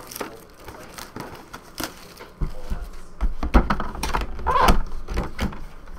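Plastic shrink-wrap crinkling and crackling as it is stripped off a cardboard box. About halfway through come louder knocks and rustling as the box is handled against the table.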